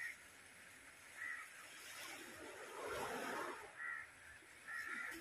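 Crows cawing, three short caws, with a spell of water splashing in a basin around the middle as a fish is handled in it.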